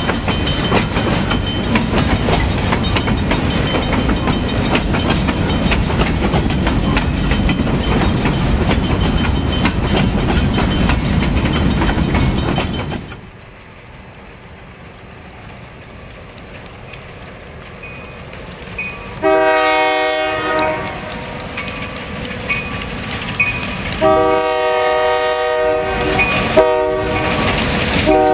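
Freight cars rolling past close by, their wheels clicking and rattling over the rail joints. Then comes a quieter, distant rumble of the train and a diesel locomotive's multi-tone air horn: two long blasts, a short one, and another long one starting, the grade-crossing warning pattern.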